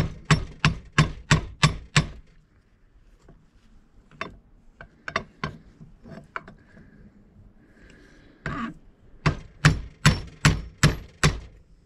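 Hammer blows on a small, thin punch, driving at the pin that holds the drive gear on a Ford 460 distributor shaft. There is a quick run of about seven strikes, a few lighter taps, then a second run of about eight strikes near the end.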